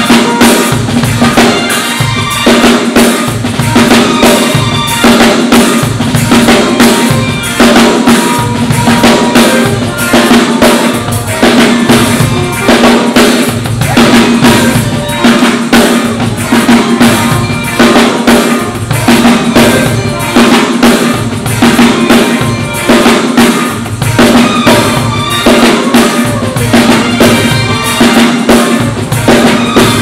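Acoustic drum kit played at a sound check: a fast, busy run of kick drum, snare and cymbal hits that keeps going without a break.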